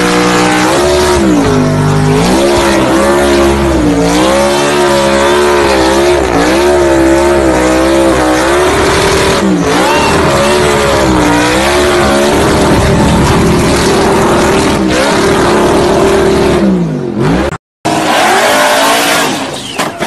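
Muscle car doing a burnout: the engine revs up and down again and again with the rear tyres screeching against the pavement, then the revs fall away. After a brief break, a different car's engine is heard near the end.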